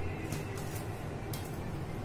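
A few short scraping strokes of a metal knife trimming fondant at a cake's base, over a steady low hum.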